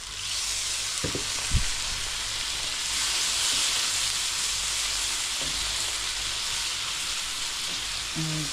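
Ground spices frying in hot oil in a pan, a steady sizzling hiss that jumps up at the start as a little water goes in. Two short knocks come about a second and a second and a half in.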